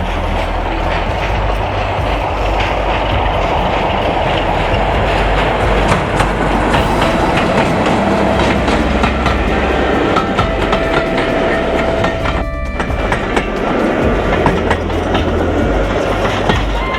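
Diesel train running along the line: a steady low rumble with wheels clicking over the rail joints, and a short break about twelve seconds in.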